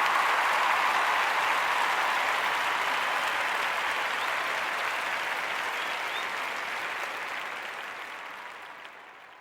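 Crowd applause after a song ends, fading out over the last few seconds.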